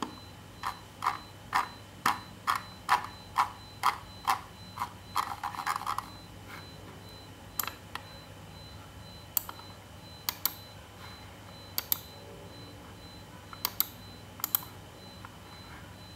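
Logitech M170 wireless mouse clicking as its scroll wheel and buttons are worked. A run of evenly spaced clicks comes about two a second, then a quick rattle of clicks about five seconds in, then scattered single clicks.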